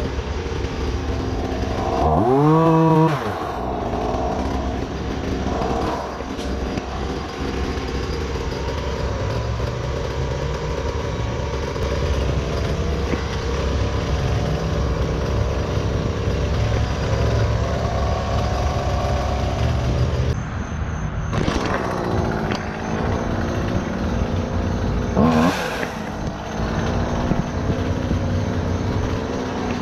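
An engine running steadily under work, briefly revving up and back down twice: once about two seconds in and again near the end.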